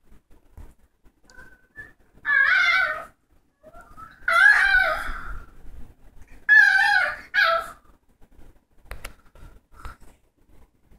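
A pet dog making four drawn-out, wavering vocal calls, the last two close together.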